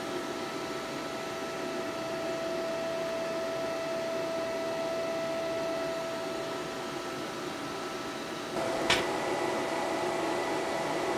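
Steady hum of the YesWelder TIG 200P welder's cooling fan running, with a steady whine over it. A single click comes about nine seconds in, after which the hum is a little louder.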